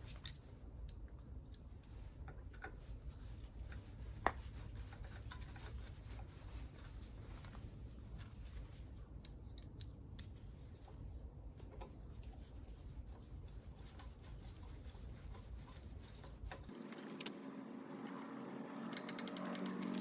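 Faint clicks of hand tools on scooter engine parts, with one sharper click about four seconds in, over a low steady hum.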